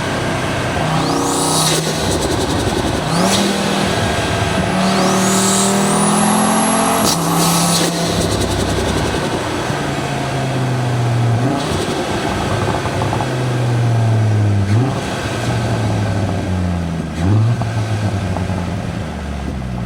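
Audi TT RS's turbocharged five-cylinder engine pulling hard through the gears, its pitch climbing and then dropping sharply at each shift, with a high rising turbo whine and turbo flutter as the throttle lifts.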